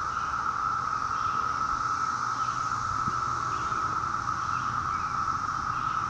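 Chorus of Brood V periodical cicadas: a steady, unbroken droning hum from many males calling for mates.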